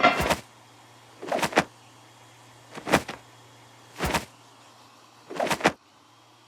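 A short rushing noise repeated five times, about a second and a half apart, each with a double swell, over a faint steady hum.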